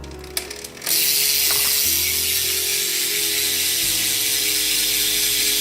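Freewheel hub of a BMX back wheel buzzing with rapid pawl clicks as the wheel spins freely, pretty loud. It starts about a second in, after a couple of single clicks, and runs on steadily.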